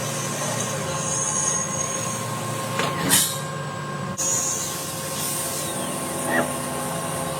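Machine cutting wood: a steady whine with the noisy rasp of the cut, and a brief louder rush about three seconds in.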